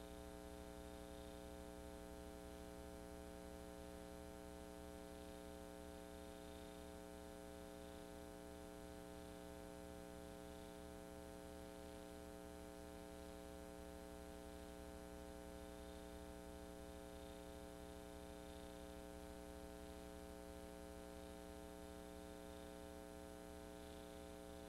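Near silence apart from a steady electrical mains hum with faint hiss, unchanging throughout; no sound of the parade itself is heard.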